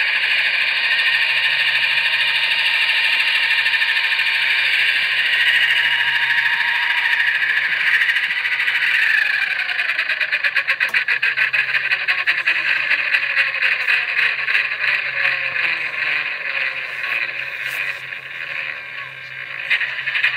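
Blade Nano S3 micro RC helicopter's electric motors whining steadily in a hover. About nine seconds in it sets down, and the pitch falls as the rotors spin down, with a rapid pulsing that gradually slows.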